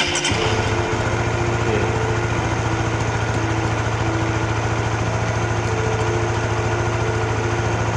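Honda RS-X motorcycle's single-cylinder four-stroke engine starting right at the beginning and settling straight into a steady idle.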